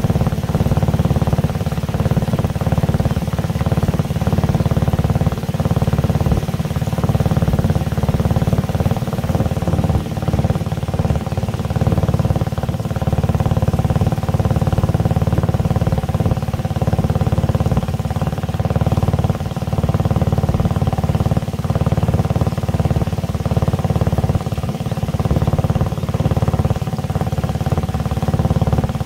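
Tour boat's engine running steadily at an even pitch.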